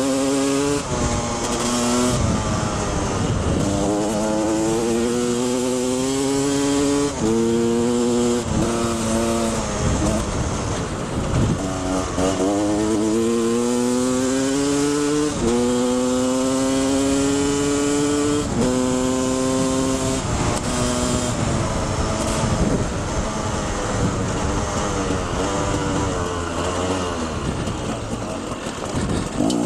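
Two-stroke engine of a 2011 KTM 250 XC enduro bike under hard acceleration, its pitch climbing through each gear and dropping at each upshift, again and again. Near the end the revs fall and waver as the bike slows.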